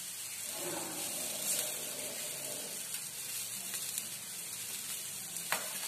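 Gram-flour tomato omelette frying in oil on a flat pan, a steady sizzle, with one short tick near the end.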